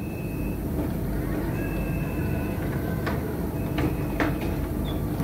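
Tram running with a steady low rumble, a few short high steady tones in the first half and several sharp clicks or knocks in the second half.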